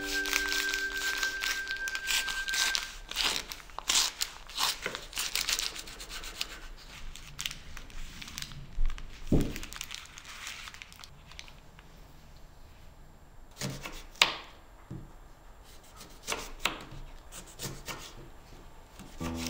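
A kitchen knife sawing through a paper-wrapped sandwich, the wrapping paper crinkling and tearing with each stroke for the first several seconds. Then come quieter rustles of the paper and a few sharp clicks, and near the end a knife cuts a lime on a wooden board.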